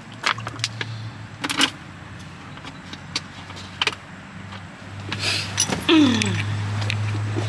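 Clicks and rustles of handling, then a car engine starts about six seconds in, its revs falling back to a steady low idle.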